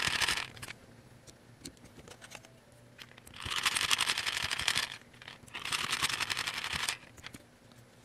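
Phillips screwdriver turning small screws out of the metal side mounting holes of a 3.5-inch hard drive, heard as three stretches of rapid fine clicking: one ending about half a second in, then two more about a second and a half apart later on.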